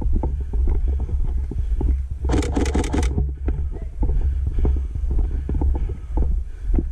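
Heavy low rumble of wind and movement on a worn action camera, with scattered knocks throughout. About two seconds in comes a short rapid run of six or so sharp clicks.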